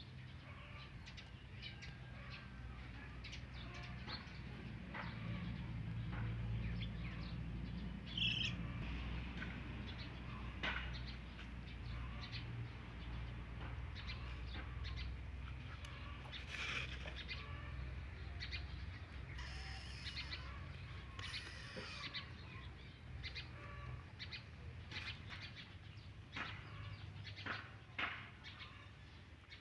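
Quiet outdoor ambience: birds chirping now and then, one clear call about eight seconds in, with scattered small clicks and ticks over a low steady rumble.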